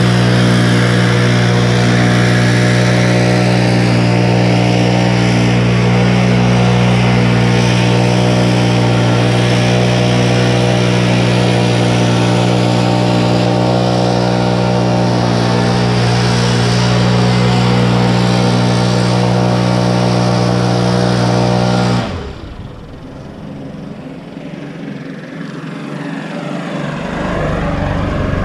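Stihl BR 700 two-stroke backpack blower running at full throttle, clearing snow off the sidewalk: a loud, steady drone. About 22 seconds in it cuts off suddenly, and a much quieter stretch follows.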